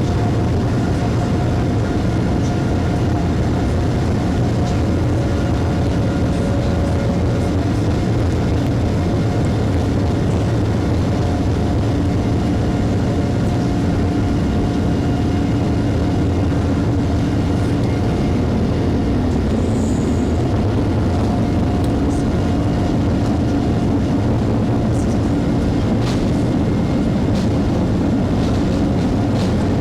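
Steady cabin noise inside a Boeing 787 Dreamliner with its engines running: a constant deep rumble with faint steady whines over it, holding level throughout.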